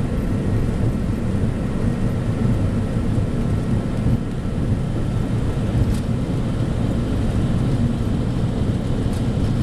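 Aircraft takeoff roll heard from inside the cockpit: a steady, heavy low rumble of engines at takeoff thrust and wheels on the runway, with faint steady whine tones above it.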